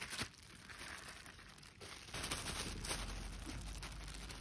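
Thin plastic food bags crinkling and rustling in the hands as beaten egg is poured from one bag into a bag of shredded cabbage and the bag is gathered up for mixing, in irregular soft rustles with a few sharper crinkles.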